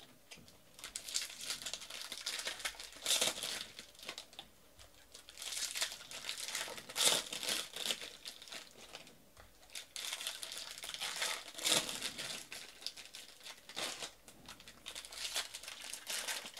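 Foil wrappers of Bowman baseball card packs being torn open and crinkled by hand, in repeated bursts of crackling with short pauses between.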